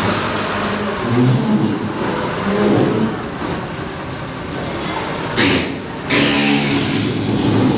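TCM forklift engine running and being revved up and down as the forklift works. A hissing rush comes in about five and a half seconds in and again from about six seconds on.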